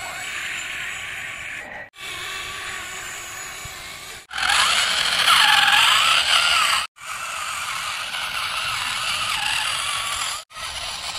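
Small electric motors and gearboxes of plastic RC toy trucks whirring as they drive on sand, in several short stretches cut apart by edits; one stretch in the middle is louder, with a wavering tone over the whir.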